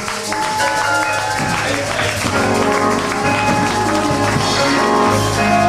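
Live church music with long held chords, and a stronger low bass note coming in about five seconds in.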